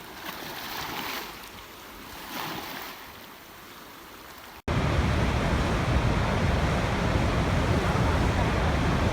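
Water rushing, swelling and easing twice in the first half. About halfway through, an abrupt cut switches to a louder, steady rush of water that is heavy in the low end.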